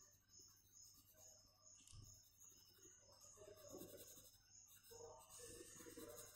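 Faint pencil strokes scratching on drawing paper while shading, irregular and growing busier in the second half, over a steady low electrical hum.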